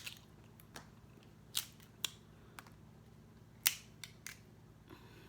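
Snow crab leg shells cracking and snapping as they are broken open by hand, about eight sharp separate cracks, the loudest a little past halfway.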